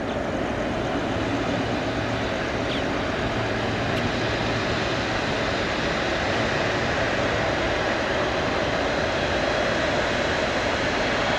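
Jet airliner engines: a steady noise with a faint steady hum in it, slowly growing louder.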